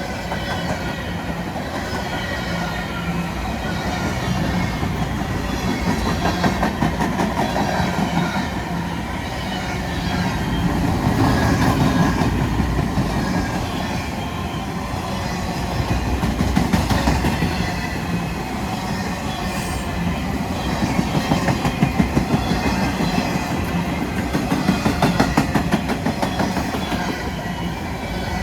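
Empty freight cars of a train rolling past, steel wheels clicking steadily over rail joints. The level swells and eases every few seconds as the cars go by.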